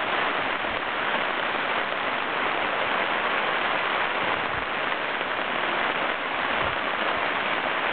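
Heavy rain falling: a steady, even hiss.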